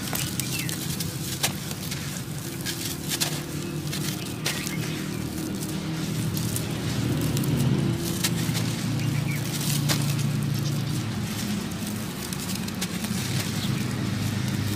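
Dry sand-cement chunks crumbled by hand into a shallow pan of water: scattered gritty crackles and the patter of falling crumbs, over a steady low rumble.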